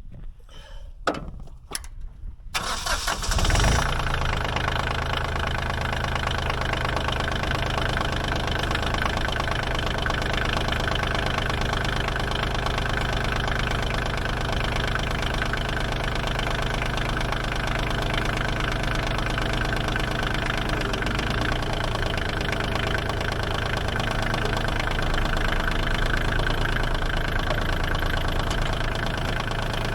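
Bobcat CT122 compact tractor's diesel engine cranking and starting about three seconds in, after a few light clicks, then idling steadily.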